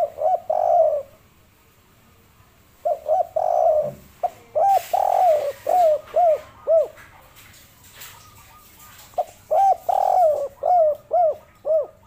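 Spotted dove cooing its 'kuk 3' song: three phrases of short coos and a longer drawn coo, each ending in a quick run of short, falling coos.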